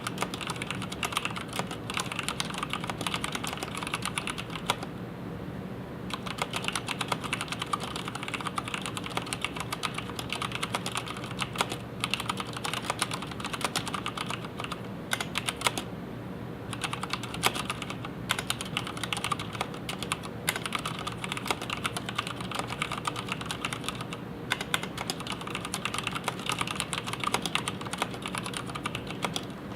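Continuous typing on an mStone Groove87-FR4 87-key mechanical keyboard with red linear switches: a dense run of key strokes, broken by a few short pauses.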